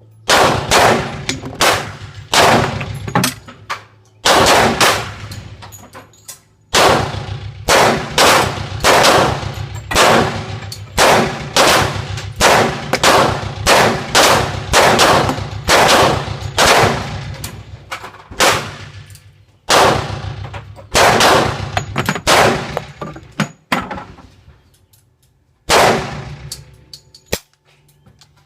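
Gunshots fired one after another, about one to two a second, with a few short pauses and a last single shot near the end.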